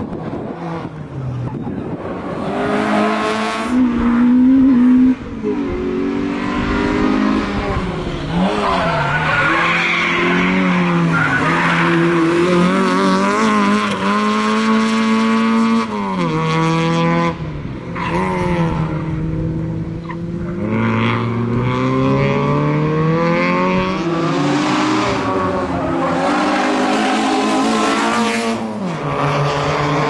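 Citroen Saxo rally car's engine revving hard and dropping back again and again as it accelerates and brakes through a tight course, with tyres squealing in the turns.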